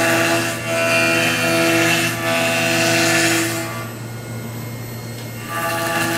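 5-axis CNC machining centre milling laminated katsura wood with a ball-end cutter: a steady spindle whine under a rasping cutting noise. The cutting noise drops away for about two seconds past the middle, then resumes.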